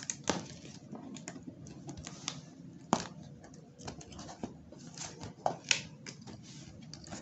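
Fingernails scratching and picking at packing tape on a cardboard laptop box, with the tape peeling and the cardboard being handled: irregular sharp scratches and clicks, a few of them louder.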